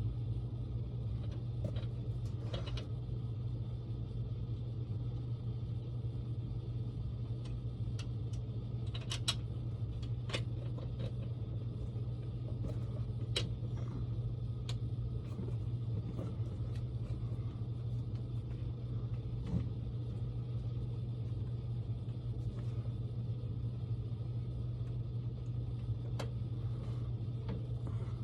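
Steady low machinery hum, with scattered sharp metallic clicks and taps as bolts, spacers and washers are handled while a pinsetter bucket is bolted in place.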